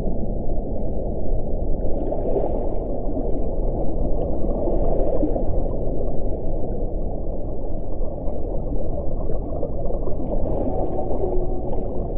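Whale vocalizations recorded underwater: low calls over a steady rush of sea noise, with brief higher sounds about two, five and eleven seconds in.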